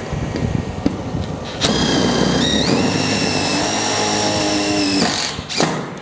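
Cordless impact driver driving a roofing screw into a pre-drilled steel roof panel for about three seconds, its whine stepping up in pitch partway through. A brief second burst follows near the end.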